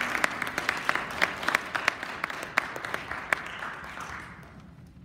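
A small audience clapping hands in applause, thinning out and dying away in the last second or so.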